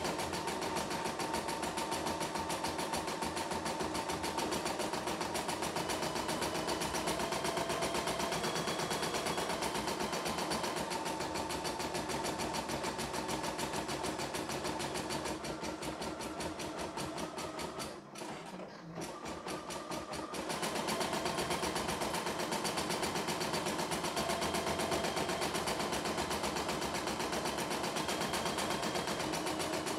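A CNY E960 computerised embroidery machine stitching, with a fast, even needle rhythm. It quietens briefly about two-thirds of the way through, then carries on stitching at the same pace.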